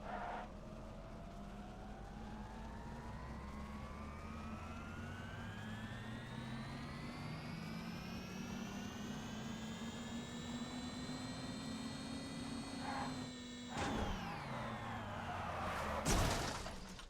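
Rimac Nevera electric hypercar's motors whining under acceleration: a whine of several tones rising steadily in pitch for about twelve seconds, levelling off, then falling away after a brief break. A loud burst of rushing noise comes near the end.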